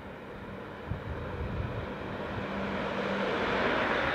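Large coach bus driving up and passing close by. Its engine and tyre noise swell steadily as it nears and are loudest near the end.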